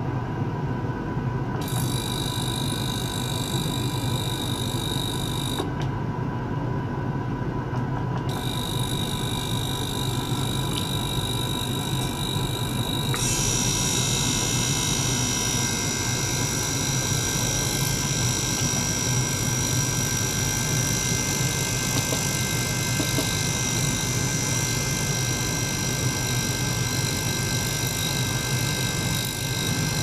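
Steady mechanical hum of a small liquid-circulation pump together with the buzz and whine of a tabletop ultrasonic cleaner. A high whine cuts in a couple of seconds in, drops out for about three seconds, then returns. About thirteen seconds in, the high tones shift to a new, brighter set that then holds steady.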